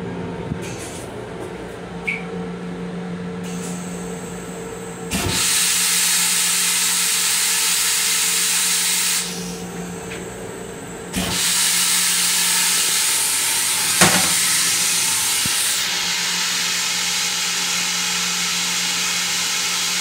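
Steady low hum of the railcar, broken by two sudden rushes of loud hiss: one of about four seconds, then after a short gap one of about ten seconds. A single sharp knock falls about fourteen seconds in.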